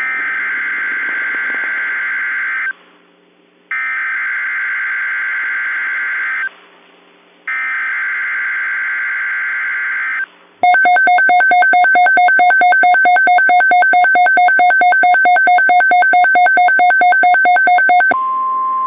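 Emergency Alert System tones: three harsh, buzzing SAME header data bursts of about three seconds each, with short gaps between them. They are followed by a loud, rapidly pulsing alert tone for about seven seconds, and a steady single tone near 1 kHz begins near the end, the weather-radio alert tone.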